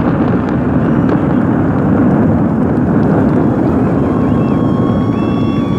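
Steady, dense rumble of a distant fireworks display, the separate bursts blurred together, with a few faint whistle-like tones in the second half.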